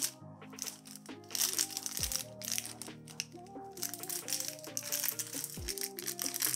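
Background music with a melody and a deep falling bass hit twice, over the rattle and crinkle of a small plastic bag of screws being handled.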